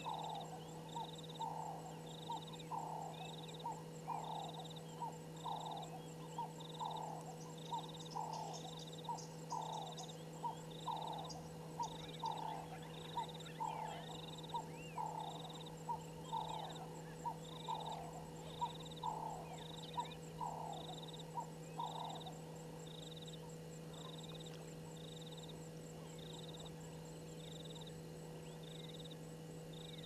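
Repeated low animal calls, about one a second, that stop about two-thirds of the way through. Alongside them, a short high chirp repeats at a similar rate throughout, over a constant low hum.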